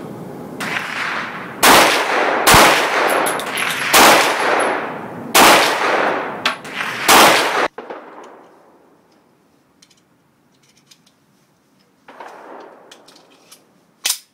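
Tokarev TT semi-automatic pistol firing 7.62x25mm rounds: five loud shots about one to one and a half seconds apart, each trailed by ringing echo. After that it goes quiet, with a fainter noise and one sharp crack near the end.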